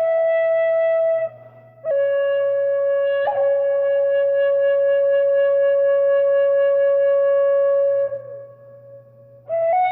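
Tin whistle played slowly as a single melody line: a short note, a brief pause, then one long held note of about six seconds that fades away, with a new, rising phrase starting near the end.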